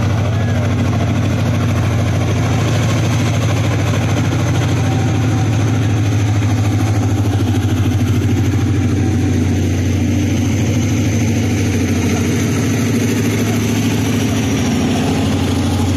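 ZCU-30 diesel-electric locomotive's diesel engine running steadily as the locomotive moves slowly past, a deep even drone. A faint high whine sits above it and fades out near the end.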